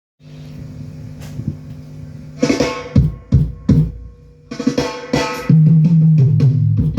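Music with drums and bass played through a home sound system for a sound check: a held low note at first, then a run of separate drum hits from about two and a half seconds in, and a heavy bass line coming in near the end.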